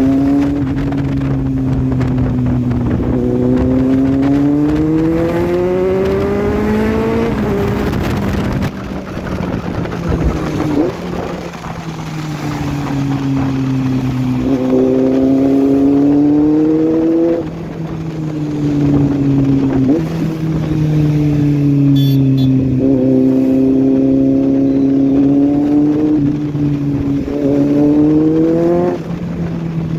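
Kawasaki inline-four motorcycle engine running under the rider, its pitch climbing in long pulls of acceleration and dropping back several times as the throttle is rolled off or the gear changes.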